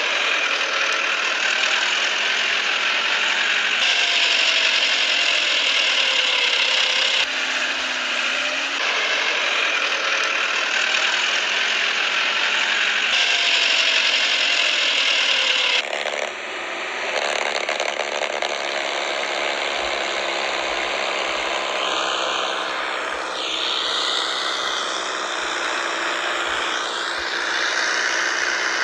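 Radio-controlled toy tractor's drive running steadily with a whir and rattle. In the second half its pitch rises and falls.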